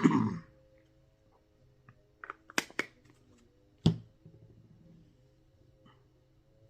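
A few short clicks and taps of small parts being handled: a quick cluster around two and a half seconds in and a sharper single click near four seconds, over a faint steady hum.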